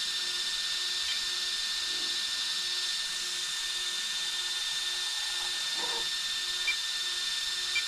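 The Cross RC XX10 T-Rex's electric drive motors running under throttle on a test bench: a steady high whine and hiss. A faint tone pulses on and off about twice a second, and a few small ticks come near the end.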